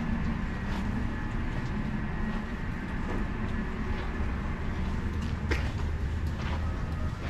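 Footsteps on a wet wooden ship's deck, short clicks about a second apart, over a steady low rumble.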